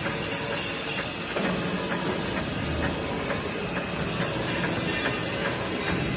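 Clay brick-making machine running, its large gears turning: a steady mechanical hiss and rattle with a light clank about once a second.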